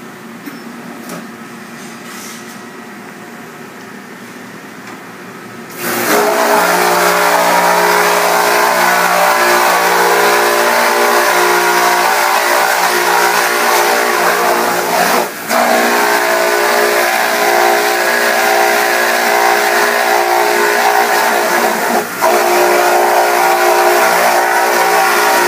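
A 900 psi, 3-gallon-a-minute pressure washer starts about six seconds in and runs loudly, its pump humming steadily under the hiss of the spray as it washes the exposed photopolymer emulsion out of screen-printing screens. The sound dips briefly twice. Before it starts there is a quieter steady hum.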